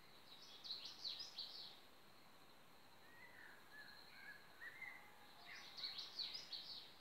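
Faint birdsong: a quick cluster of high chirps about a second in and another near the end, with softer warbling notes between them.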